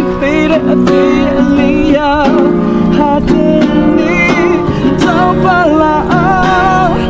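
A song: acoustic guitar strummed in a steady rhythm with a singing voice carrying a wavering melody over it.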